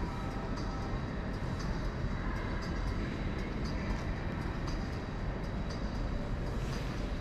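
Low, steady rumble of a large hall's ambience, with soft footsteps on a concrete floor about twice a second at a walking pace.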